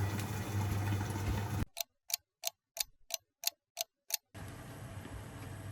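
Ticking-clock sound effect: eight even ticks, about three a second, over dead silence, marking time passing while the peppers cook. Steady kitchen noise with a low hum runs before and after the ticks.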